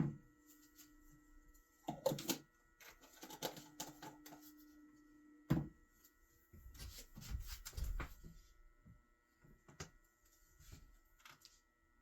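Cookware and utensils being handled, giving scattered knocks and clinks with a faint steady hum underneath; the sharpest knocks come about two seconds in and again a little past midway.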